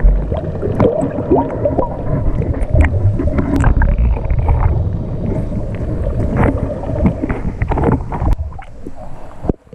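Water sloshing and gurgling against a camera dipped at and below the water's surface, a muffled underwater rumble with scattered knocks and splashes. It cuts off suddenly near the end.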